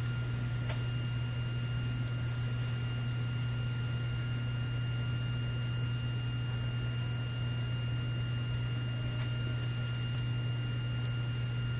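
Steady low hum with fainter high steady whine tones from the powered-up Pines i-Line CNC 038 tube bender. Four faint short beeps come from the touch-screen control panel as its keys are pressed.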